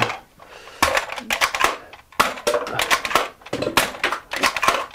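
Plastic Nerf Strike Elite Disruptor blaster being worked by hand after a jam: three bursts of rapid plastic clicks and rattles, about a second and a half apart, as the slide is racked and the cylinder turns.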